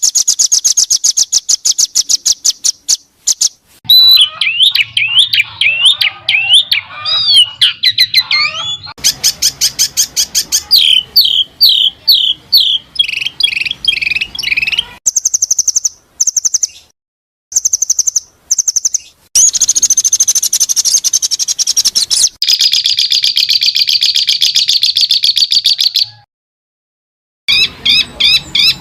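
Edited songbird masteran recording: fast, shrill bird song in spliced segments. Rapid repeated high chips give way to warbling whistled phrases, then quick down-slurred notes and a long high trill, each cut off abruptly. There is a short silent gap near the end before the rapid chips resume.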